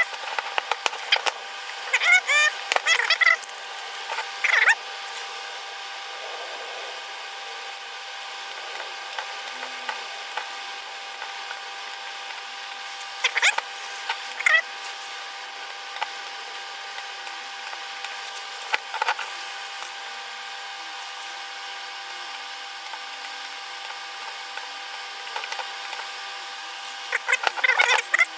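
Intermittent clicks, taps and scraping of tools and parts being handled on a workbench, in several short clusters over a steady electrical hum.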